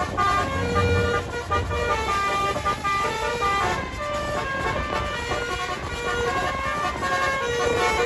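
Basuri 'telolet' bus horn, a multi-tone horn playing a melody: several horn tones sounding together and stepping from note to note in short held phrases.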